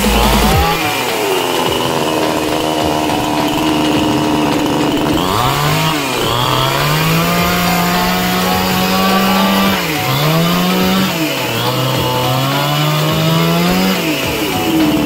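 Two-stroke chainsaw engine running and being revved, its pitch climbing and dropping back several times with the throttle. This is the saw running again after its starting problem was repaired.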